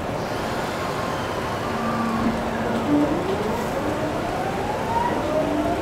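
GTO-VVVF inverter and MT68 traction motors of a JR 209 series 3100 electric train whining as it pulls away and accelerates, heard from inside the car. A steady tone steps up in pitch about two seconds in, then whines climb steadily in pitch through the second half.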